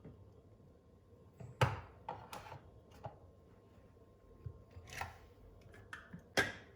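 Kitchenware being handled: a handful of short knocks and clatters, the loudest about a second and a half in and near the end.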